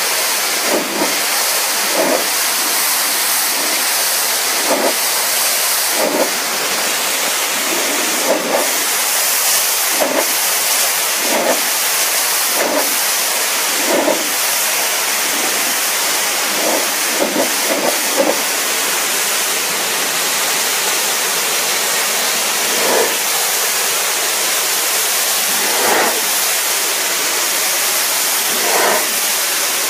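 Pressure washer lance jet blasting water onto tiles: a loud, steady hiss, with short splashy spurts every second or two.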